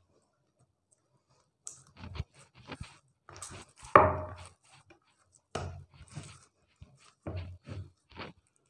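Hands kneading soft wheat-flour dough on a ceramic plate: irregular pressing and slapping sounds that begin after about a second and a half, with the loudest knock about four seconds in.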